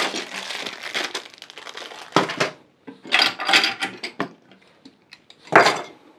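Plastic packaging rustling and crinkling as small packets and parts are pulled out of a cardboard box and set down, in irregular bursts with brief quiet gaps, the loudest near the end.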